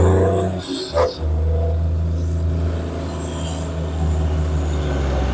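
A vehicle engine running steadily at a low, even hum, with one short sharp sound about a second in.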